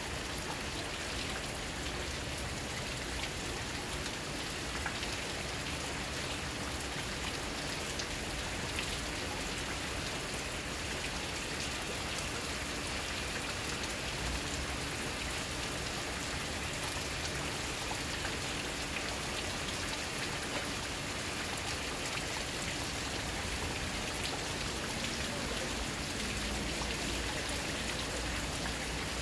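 Steady rain falling: an even wash of water noise with many small ticks of single drops striking throughout.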